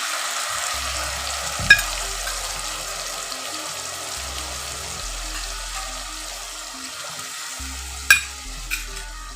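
Soaked spice paste sizzling in hot mustard oil and fried onions in a kadai, loudest at the start and slowly dying down as it is stirred. A spatula knocks against the pan about a second and a half in and again near the end.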